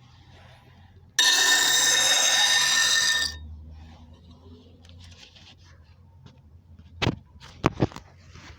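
Scissor blade ground against a bench grinder's wheel for about two seconds: a loud grinding with a steady high ring that starts and stops abruptly. The motor hums low afterwards, and there are a few sharp knocks near the end.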